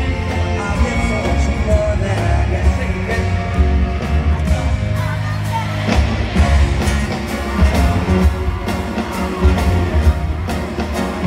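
A live pop band playing with singing, heard in an arena: drums keep a steady beat under strong bass, with vocals from the singers on stage.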